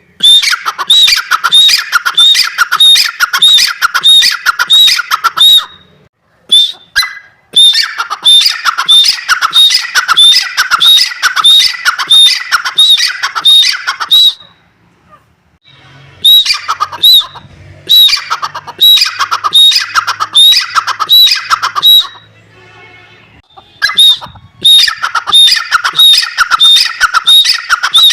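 Dakhni teetar, a francolin, calling: long runs of loud, harsh, rapidly repeated notes, about two a second. Each run lasts several seconds, with short pauses between, and a faint low hum shows under the middle stretch.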